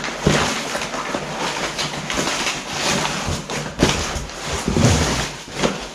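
Cardboard shipping box being opened and a packaged handlebar slid out of it: cardboard rustling and scraping, with many short knocks and crackles.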